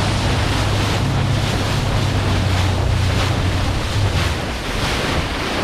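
Motorboat under way: water rushing and splashing along the hull, with wind buffeting the microphone and a steady low engine hum that drops away about four seconds in.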